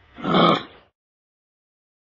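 A single short, hoarse animal call lasting about half a second, one of a series of like calls.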